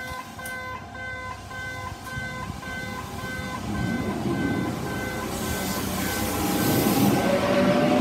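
Station level-crossing warning signal sounding its unusual multi-tone chime, pulsing about twice a second. From about four seconds in, a Kintetsu electric train rolls across the crossing, its wheel and track noise growing louder, with a rising whine near the end.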